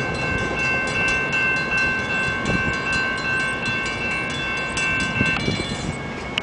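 Grade-crossing warning bell ringing rapidly over the low rumble of a departing light-rail trolley; the bell stops about five seconds in as the train clears the crossing.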